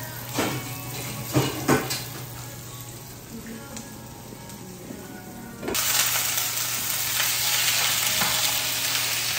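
Water snails frying with spices in a hot pan, stirred with a wooden spatula: a loud, even sizzle starts suddenly about halfway through and keeps going. Before it there are a few sharp knocks in the first two seconds.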